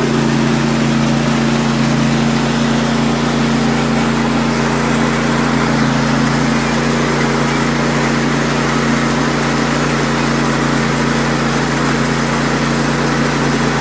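Mini rice milling machine running steadily while it mills grain: an even mechanical drone with a steady low hum and no change in speed.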